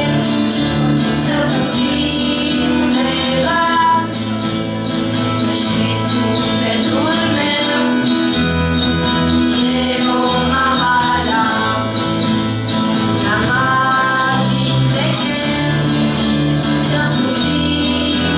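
Acoustic guitars strummed together by a group, with female voices singing along.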